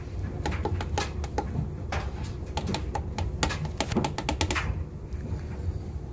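Stew being tipped and scraped out of a plastic bowl into a stainless steel dog bowl: a run of irregular sharp clicks and taps that stops about three-quarters of the way through, over a low steady hum.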